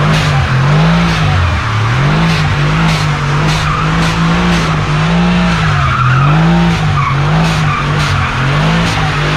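2019 Mercedes-AMG C63's twin-turbo V8 held high in the revs during donuts, its note dipping and climbing back again and again, with the rear tyres spinning and sliding on wet asphalt.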